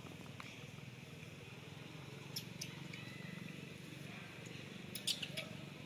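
Dry leaf litter crackling in a few short, sharp clicks over a faint steady low hum: twice about two and a half seconds in, then a quick cluster near the end.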